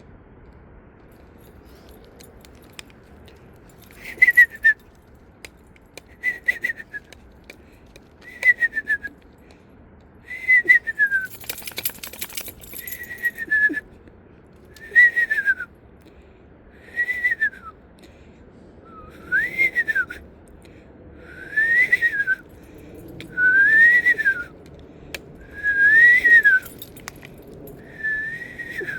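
A person whistling a run of about a dozen short owl-call whistles, one every two seconds or so, starting about four seconds in. The first whistles slide downward and the later ones rise and then fall, in imitation of a screech owl's call.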